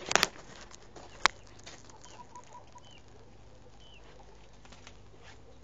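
Backyard hens clucking softly, with a few faint high chirps. A short clatter at the start and a sharp click about a second in are the loudest sounds.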